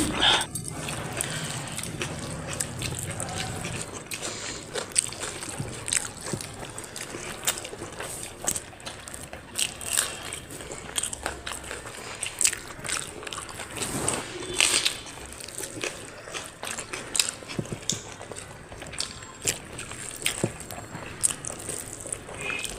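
Eating sounds of rice and curry eaten by hand: wet chewing, mouth smacks and squelches of food, with many short irregular clicks.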